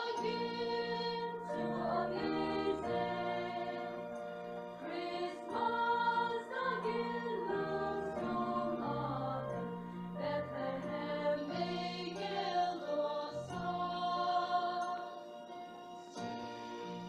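A choir singing in several-part harmony over steady low sustained notes, holding chords that change every second or so, with a softer passage near the end.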